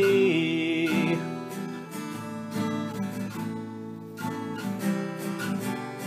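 Rock song demo: strummed guitar chords carry on after a sung note is held and released about a second in.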